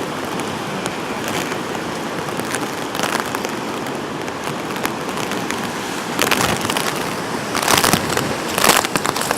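Hurricane wind and heavy rain at night: a steady rush of noise, with a few short, louder bursts in the second half.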